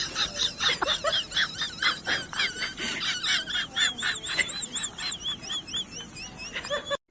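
A small animal chirping: a fast run of short, wavering high-pitched chirps, about three to four a second, that stops abruptly near the end.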